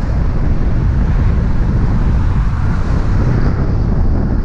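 Wind buffeting the camera microphone: a steady, loud low rumble with no breaks.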